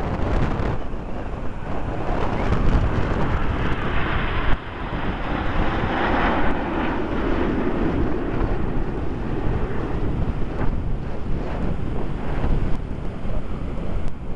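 Strong wind buffeting the microphone over the jet noise of the Red Arrows' BAE Hawk jets passing in formation, which swells about six seconds in.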